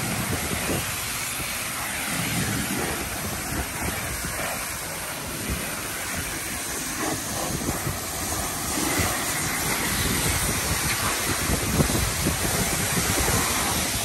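Car-wash pressure wand spraying water onto a car's body: a steady hiss of spray, a little louder in the second half.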